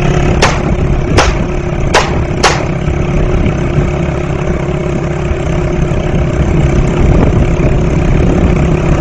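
Motorcycle engine running at a steady speed, with four sharp clicks in the first two and a half seconds.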